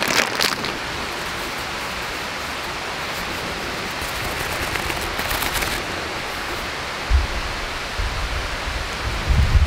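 Steady rushing outdoor noise. There are a few short crackles at the start, and low thumps come in the last few seconds.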